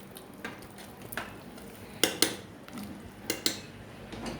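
A metal spoon clinking against a pressure cooker pot, several sharp separate clinks as the rice and water are stirred.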